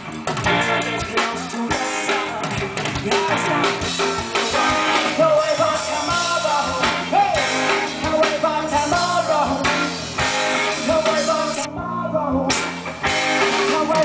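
Rock band playing live: electric guitars and a drum kit, with a sung vocal line between the lyrics. For under a second, about twelve seconds in, the high end drops out.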